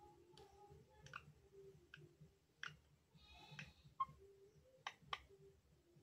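Near silence broken by faint, scattered sharp clicks, about eight in all, and one brief faint high-pitched squeak about three and a half seconds in.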